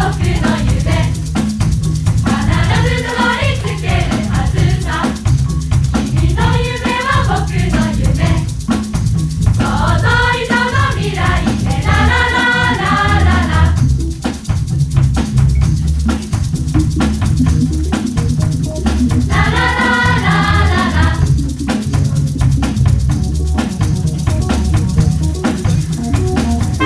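A school wind band's rhythm section keeps up a steady drum-and-bass groove with shaker-like percussion, while the band members sing out together in short group phrases several times over it.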